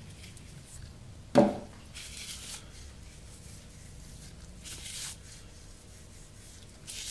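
Coarse sea salt crumbled between black-gloved fingers and sprinkled onto a raw steak, a soft, faint rustle of grains in a couple of short spells. A short louder sound, like a brief vocal noise, comes about a second and a half in.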